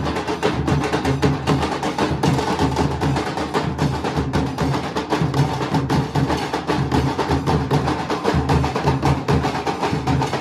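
A Nashik dhol ensemble: many large barrel drums beaten together with wooden sticks. The rhythm is fast, dense and loud and does not break.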